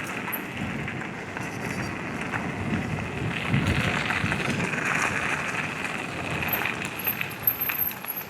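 Electric mountain bike riding downhill on a rough track: steady tyre noise over gravel and dirt with wind on the microphone, and a few sharp knocks near the end.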